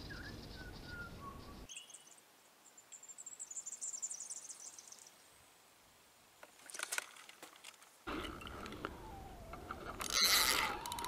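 Quiet pondside ambience with faint high bird chirps. About ten seconds in comes a sudden, louder rushing buzz as a fish is struck and hooked on the float rod.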